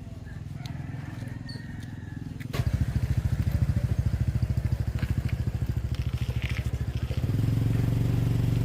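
Small motorcycle engine running with an even, fast pulse, growing louder about two and a half seconds in and again near the end, as if the throttle is opened.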